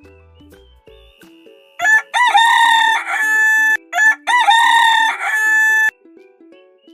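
Rooster crowing twice, each cock-a-doodle-doo a short note and then a long held one, over light background music.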